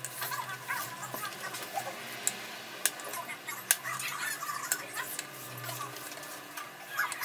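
Nylon paracord being handled and pulled tight while tying a lanyard weave: irregular small clicks and rustling, with short squeaks.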